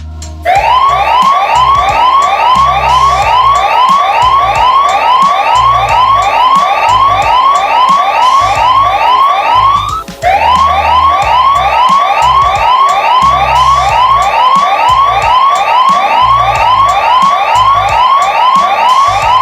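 Loud electronic emergency alert siren of rapid rising sweeps, about three a second, in two long runs with a short break near the middle, over a faint low pulsing undertone.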